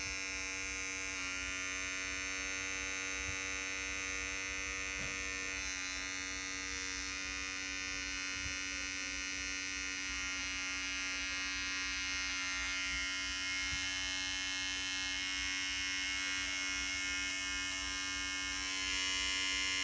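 Bevel Pro hair clipper running steadily, plugged in on its charging cord on its first run out of the box: an even electric motor hum, a little louder near the end.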